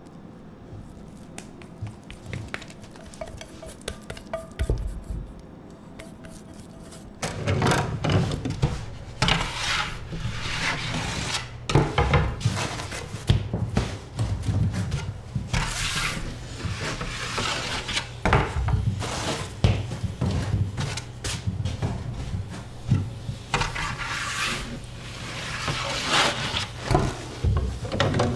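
Soft scraping of a silicone spatula on dough in a stainless steel bowl. About seven seconds in, louder scraping and wooden knocks follow as baked baguettes are slid out of a wood-fired oven onto a wooden peel, over a steady low hum.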